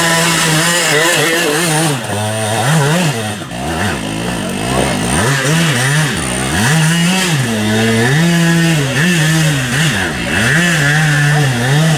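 Classic enduro motorcycle engines revving on a steep forest climb, their pitch rising and falling over and over as the riders blip and hold the throttle, with a second engine overlapping for a few seconds near the middle.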